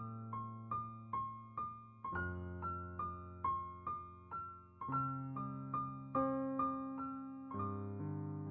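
Background piano music: a gentle melody of evenly paced notes over held bass notes that change every couple of seconds.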